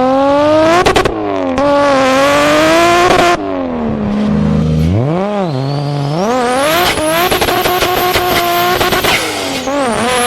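A racing car engine revving hard, its pitch climbing and dropping again and again with throttle and gear changes. A thin high whine rises steeply about six seconds in.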